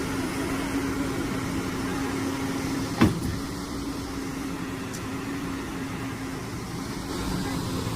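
A heavy machine's engine running steadily, a constant drone with a steady hum in it. There is one sharp knock about three seconds in.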